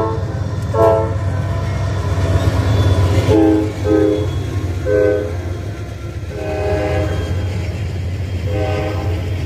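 Train horn sounding a series of short blasts, with a somewhat longer one about two-thirds of the way through, over a steady low engine rumble.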